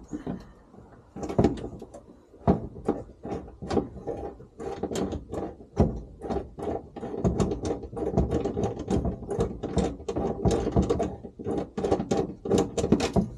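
Hand riv-nut setting tool being worked to set riv nuts into a pickup bed: rapid, irregular metal clicks and clanks, several a second, with a faint metallic ring under them.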